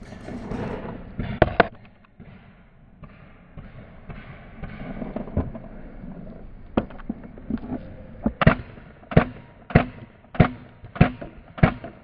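Paintball markers firing: two sharp pops about a second and a half in, then from about eight seconds in a steady string of single shots roughly every half second to a second.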